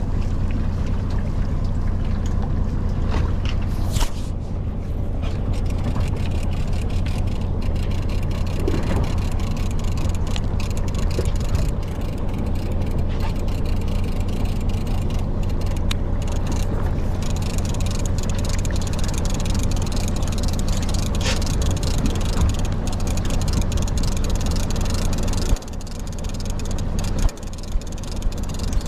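Fishing boat's engine running steadily with a low hum. Near the end it quietens and a few knocks are heard.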